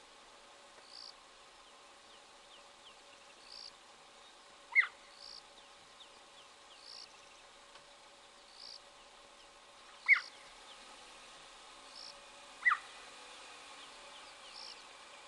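Cheetah chirping: three short, high-pitched, bird-like calls that drop in pitch, the first about five seconds in and the others around ten and thirteen seconds in. Beneath them a faint high chirp repeats every couple of seconds.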